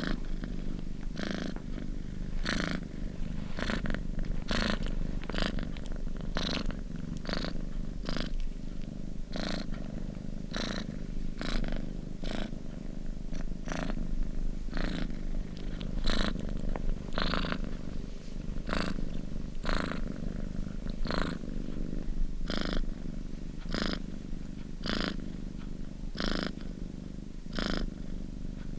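Domestic cat purring close up: a steady low rumble with a breathy pulse on each breath, a little over one a second.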